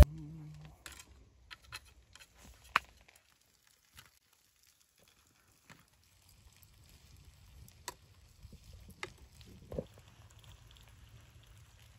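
Sparse light clicks and taps of metal tongs and sausages against a wire grill grate as pork sausages are laid on it over charcoal, with one sharper tap about three seconds in.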